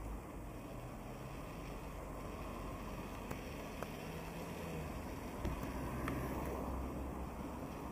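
Steady outdoor street ambience: a low rumble of motor traffic, with a few light clicks around the middle.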